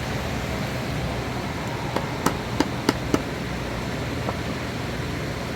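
Several sharp metallic clicks and taps, about five in quick succession midway and one more a second later, as the parts of a dismantled starter motor are handled, over a steady low hum.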